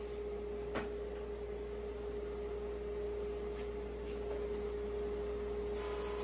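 Drum sander running with a steady hum, with one light click about a second in.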